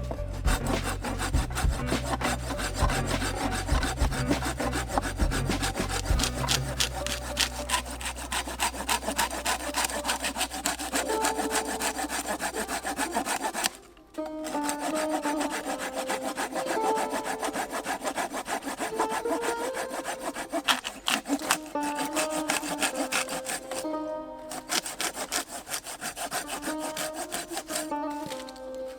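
Hand saw cutting through wood in steady back-and-forth strokes, pausing briefly twice.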